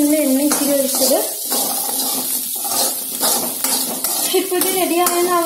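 A metal spoon scraping and clinking against a metal kadai as a dry vegetable stir-fry is stirred. A high child's voice is heard in the first second and again near the end.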